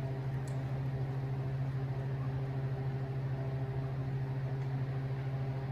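Steady low machine hum with a constant pitch, with a faint click about half a second in.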